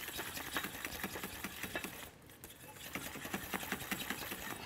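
A utensil stirring a thickening, starch-bound vanilla cream sauce in a pot, clicking fast and regularly against the pot, with a brief pause about two seconds in.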